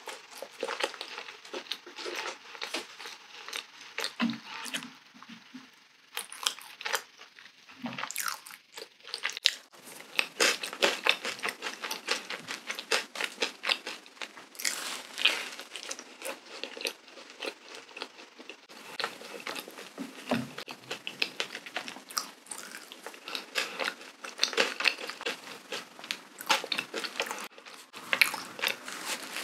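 Close-miked chewing of a powdered-sugar cream donut: soft, wet mouth sounds full of small clicks, growing busier about ten seconds in.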